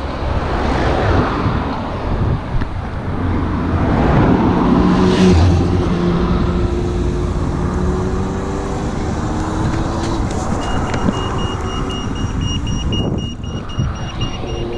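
A motor vehicle passing close on the road, its engine note swelling and fading over several seconds amid steady road noise. Near the end a thin, high-pitched steady whine comes in.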